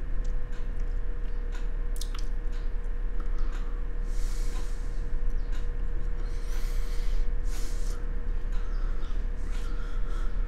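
Background noise of the voice-over recording: a steady low rumble and a faint steady hum, with scattered small clicks and two short hissy sounds near the middle.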